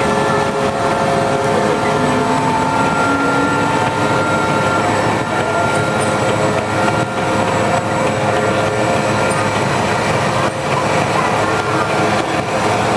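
M1 Abrams tank rolling past at close range: its gas-turbine engine whines steadily over the clatter of its steel tracks.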